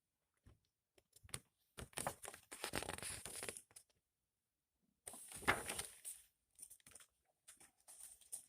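Rustling and crinkling of a DVD case and its paper insert being handled, with scattered light clicks. Two longer rustles, one about two seconds in and another about five seconds in.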